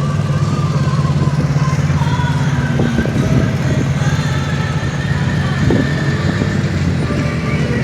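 ATV engines running steadily as the machines ride past, a continuous low drone that holds its level throughout.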